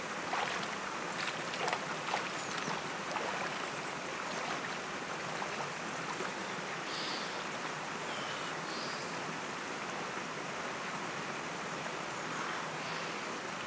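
A person wading into a cold river pool, legs splashing and sloshing through the water for the first few seconds, over the steady rush of the stream.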